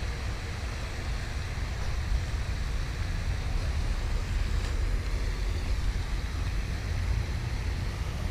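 Wind buffeting the camera microphone: a steady low rumble with a hiss over it.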